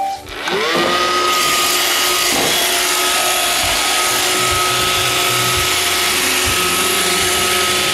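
iRobot Roomba 570 robot vacuum starting to clean: its vacuum motor and brushes spin up with a rising whine in the first second, then run steadily with a high whine over a rushing hiss and the odd low knock.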